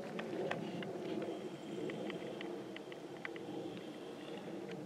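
Footsteps and rustling of grass and brush as someone moves quickly over forest ground, with scattered short sharp clicks. A faint thin high tone holds steady in the background from about a second in until near the end.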